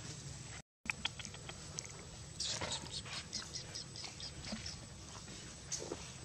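Soft rustles and small clicks of long-tailed macaques handling and eating a banana on leaf-strewn ground, over a low steady background noise. The sound cuts out completely for a moment under a second in.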